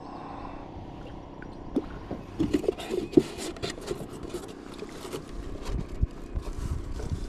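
Hands handling fishing line and tackle in a kayak: a run of irregular clicks, scrapes and light knocks, the sharpest about three seconds in. Wind rumble on the microphone builds near the end.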